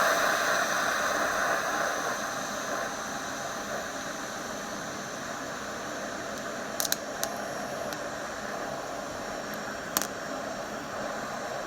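TIG welding arc hissing steadily as a nut is fused onto the end of a broken stud, easing off slightly over the first few seconds. A few sharp clicks come about seven seconds in and again near ten seconds.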